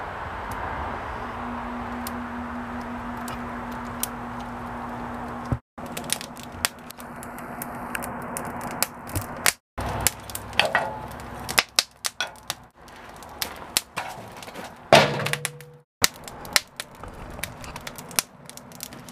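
An electric forge blower running as a steady rush with a low hum for the first few seconds. Then, after a cut, wood kindling crackling and snapping as it catches in the forge's fire pot, with one louder crack late on.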